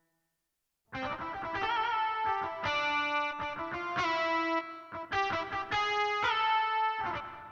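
Roland XP-10 synthesizer playing a factory preset: a short melodic phrase of notes, some held with a wavering vibrato, starting about a second in and dying away near the end.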